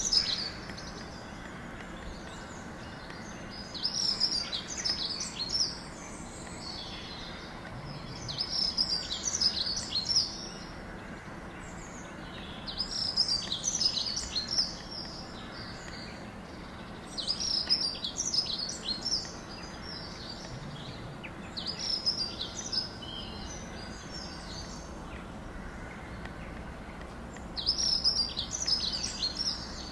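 Eastern gray squirrel barking: bouts of rapid, high chirping calls, each one and a half to two seconds long, repeating every four to five seconds over a steady background hiss.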